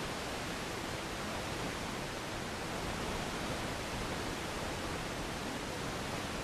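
FM radio receiver tuned to 89.5 FM giving a steady static hiss: the distant station's signal is too weak to come through clearly.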